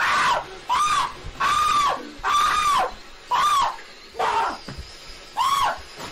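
A young man screaming in short, high-pitched bursts, about seven in quick succession, each rising and falling in pitch, in panic at a fountain firework spraying sparks indoors. A faint steady hiss runs beneath the screams.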